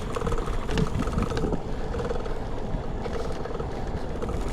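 Wind buffeting an action camera's microphone during a bicycle ride, a steady rumbling noise with the faint rattle of the bike rolling underneath.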